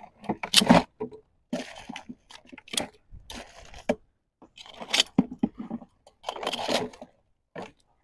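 Irregular bursts of scraping and crunching from live crabs being handled and counted one by one.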